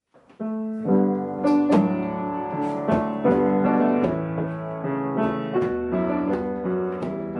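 Piano music: single notes and chords struck one after another over held tones, starting about half a second in.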